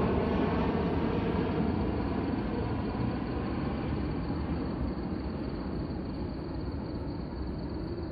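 Jet airliner engines flying low overhead, a steady rush that slowly fades and dulls as the plane moves away.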